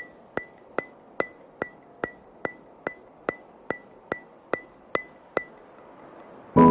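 A ticking sound effect: sharp, evenly spaced ticks, about two and a half a second, each with a brief high ring, stopping after about five and a half seconds. Piano background music starts just at the end.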